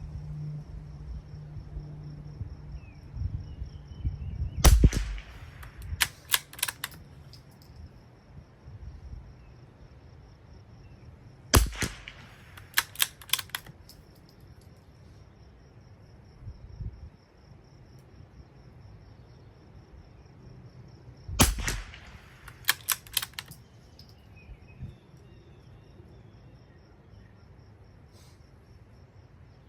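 Three sharp .22 rimfire rifle shots several seconds apart from a Marlin Squirrel rifle. Each shot is followed a second or two later by a quick run of three or four lighter clicks as the action is worked for the next round.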